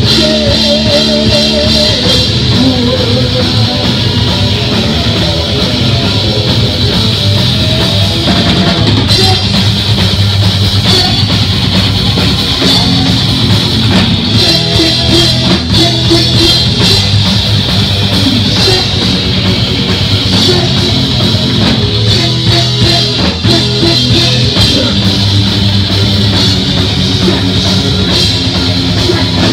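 Heavy metal band playing live: distorted electric guitar, bass guitar and a drum kit with cymbals, loud and continuous.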